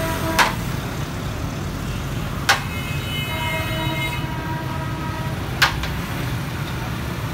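Street traffic rumbling steadily, with a vehicle horn sounding for a second or so midway. Three sharp knocks come about two to three seconds apart.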